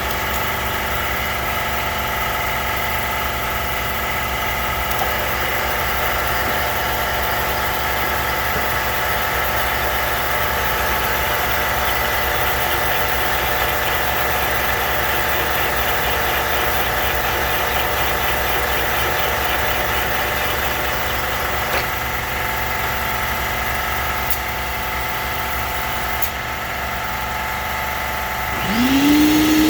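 Cylinder head machine running steadily while it cuts a valve guide down for a seal. Near the end a second motor starts and spins up with a rising whine, then runs steadily.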